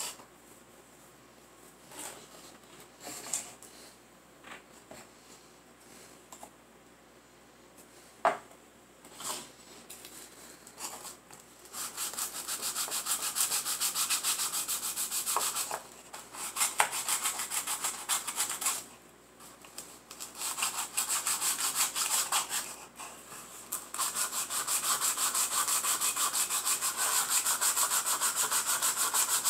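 A small wooden dollhouse stove being hand-sanded, rubbed back and forth on sandpaper: a fast, rhythmic rasping that comes in spells with short breaks and then runs steadily near the end. For the first twelve seconds or so there are only scattered light taps and knocks as the wooden piece is handled.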